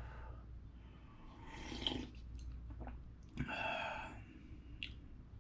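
A person slurping broth and noodles from a paper cup of instant ramen and chewing, with a couple of louder slurps and small clicks.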